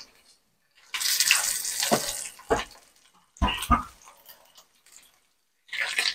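Pork belly slices sizzling in hot oil in a frying pan, starting about a second in and coming back near the end, with metal tongs knocking against the pan a few times as the pieces are turned.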